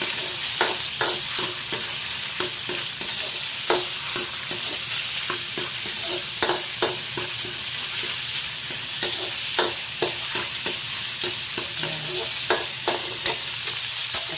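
Shrimp sizzling in hot oil in a metal wok: a steady frying hiss with frequent irregular clinks and scrapes of a metal ladle against the pan as they are stirred.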